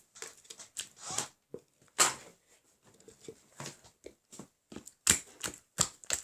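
Slime being squeezed and kneaded by hand, giving an irregular string of sticky clicks and pops, with louder pops about two seconds in and again near five seconds.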